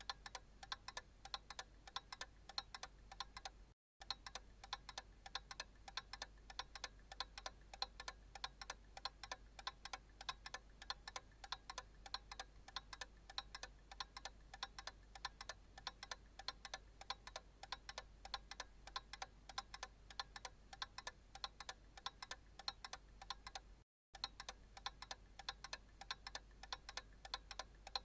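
Analog clock ticking steadily in an even rhythm, with two very brief cut-outs to silence, one about four seconds in and one near the end.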